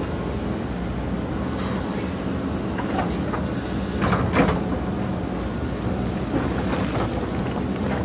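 JCB 3DX backhoe loader's diesel engine running steadily under digging load, with a few scrapes and knocks from the backhoe bucket working into rocky soil, the loudest about four seconds in.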